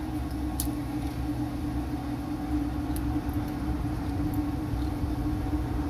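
Steady low mechanical hum with a constant held tone, like a running machine such as an air-conditioning unit, with a few faint ticks from hands working at a glass bottle.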